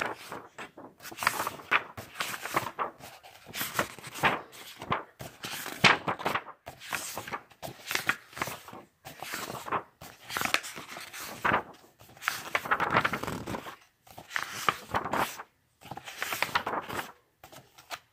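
Paper pages of an illustrated book being flipped and rustled by hand, in short scratchy bursts about once a second with brief pauses between them.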